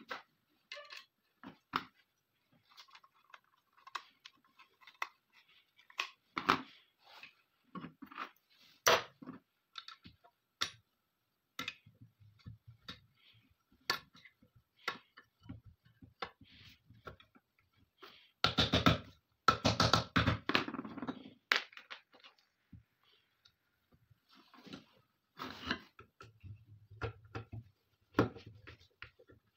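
Metal and wooden parts of a 12-bore double-barrel shotgun being handled and fitted together on a workbench: scattered clicks and knocks. About two-thirds of the way through comes a dense stretch of rapid clicking and scraping.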